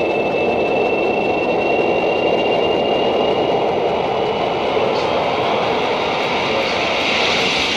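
Steady rushing, rumbling roar with a thin high whine that slowly rises in pitch.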